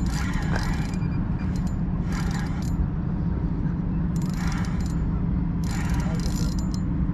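Boat motor running steadily with a low hum, with short bursts of hiss coming and going every second or so.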